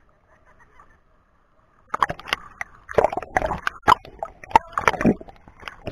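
Seawater sloshing and gurgling against a waterproof action-camera housing as it bobs at the surface and dips under, a run of irregular splashes and clicks starting about two seconds in.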